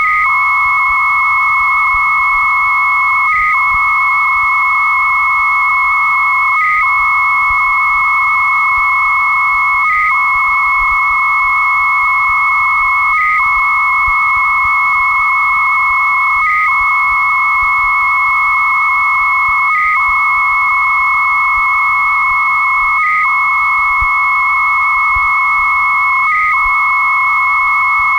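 Two 300-baud modems exchanging data during a file transfer, recorded off a telephone line: a steady, rasping warble of data tones around 1 kHz under a steady high whistle. Both break off briefly about every three seconds.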